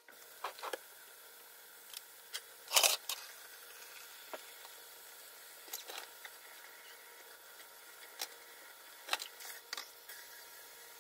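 Pineapple rings frying in oil in a pan over a gas flame: a faint steady sizzle with scattered pops and crackles, the loudest a longer crackle about three seconds in.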